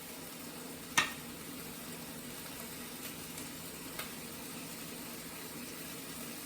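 Chicken breasts sizzling steadily in a hot skillet as they brown. There is one sharp click about a second in.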